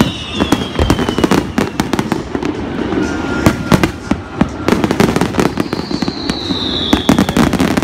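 Aerial fireworks bursting: an irregular run of sharp bangs and crackles. A high whistle falls in pitch near the end.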